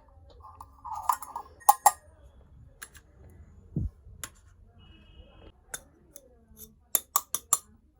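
Miniature toy kitchen pieces being handled and set down: scattered small clinks and taps, a dull knock about halfway, and a quick run of four taps near the end.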